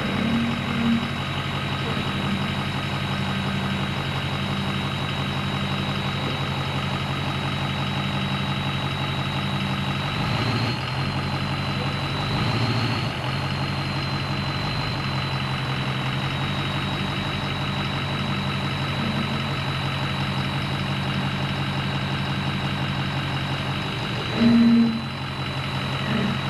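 Truck engine idling steadily, with a thin high whine held above it. A few brief louder sounds break in about ten and twelve seconds in, and again shortly before the end.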